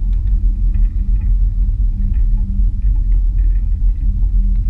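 Wind buffeting a camera microphone mounted on a parasail frame in flight: a loud, steady low rumble with a constant low hum beneath it.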